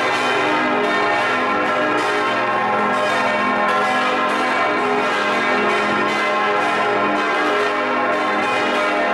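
Full peal of swinging church bells, six bronze bells tuned A♭, c, e♭, f, g and b♭, striking over one another in a dense, steady wash of ringing. This is the ringing-in that calls the parish to Sunday high mass.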